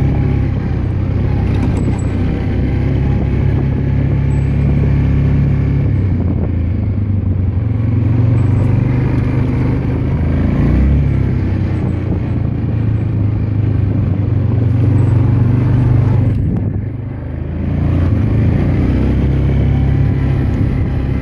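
Yamaha Grizzly 400 ATV's engine running while riding, its pitch rising and falling with the throttle; it eases off briefly about sixteen seconds in, then picks up again.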